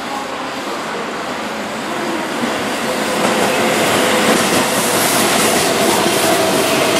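Keihan 9000-series VVVF electric train running past at close range, the wheel and running noise growing louder about halfway through as the cars go by, with a steady whine in it.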